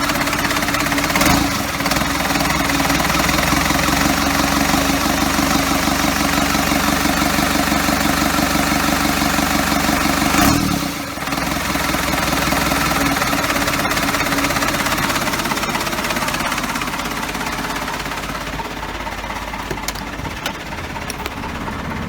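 Cummins diesel engine running steadily at idle. It changes briefly about a second in and again about ten seconds in.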